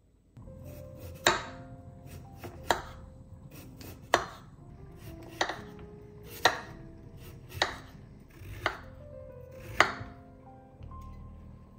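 Kitchen knife slicing peeled raw potatoes on a wooden cutting board. The blade knocks sharply against the board eight times, about once a second. Soft background music plays underneath.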